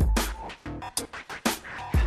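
Electronic background music with a steady beat of deep bass kicks and sharp snare hits.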